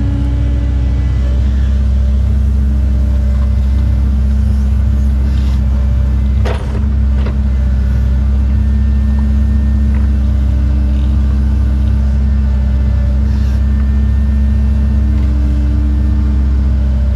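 Cat 309 excavator's diesel engine and hydraulics running steadily under load while digging and swinging, heard from inside the cab, with a higher hum that comes and goes. A short sharp knock sounds about six and a half seconds in.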